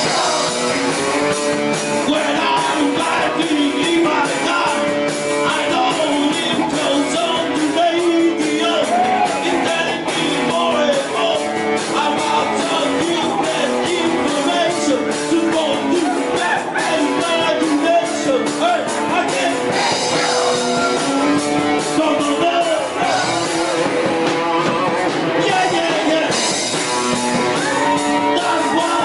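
Live rock band playing a rock and roll song, with a singer, drums and electric bass and guitar, steady and loud.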